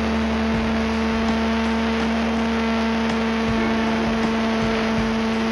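Small electric motor and propeller of a homemade radio-control plane, heard through its onboard camera's microphone in flight: a steady hum with a rush of air, shifting a few times at the low end.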